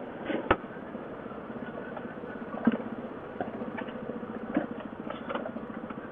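Yamaha 700 ATV's single-cylinder engine running at low, steady revs going down a steep hill. Several sharp knocks and rattles from the quad jolting over rocks, the loudest about half a second in and again near the middle.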